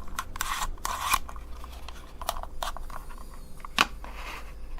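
Light clicks, taps and rustles of small objects being handled, with one sharper click a little before the end, over a faint steady low hum.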